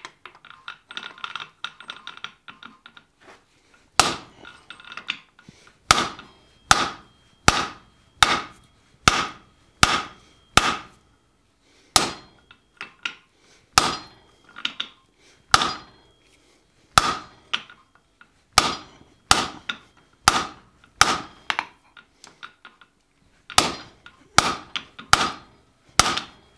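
Hand hammer striking a hot bar of salvaged coil-spring steel laid across a hardy in the anvil, cutting it through. The blows start about four seconds in and come about two a second in runs with short pauses, each with a brief metallic ring.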